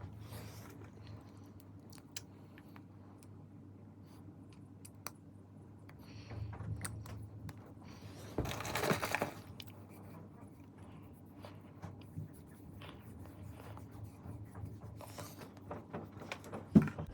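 Small clicks, taps and rustles of makeup items being handled, with a longer rustle about halfway through and a sharp click near the end.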